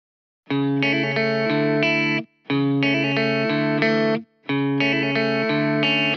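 Background music led by guitar, in three phrases of about two seconds each that stop abruptly with brief silences between them.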